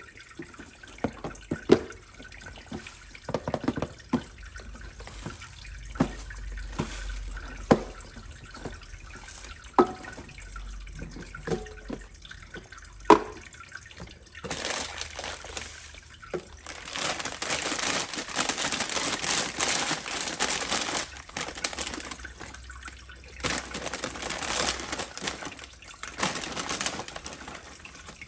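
Water dripping in single plinking drops, then from about halfway a stream of water running or pouring in several long spells.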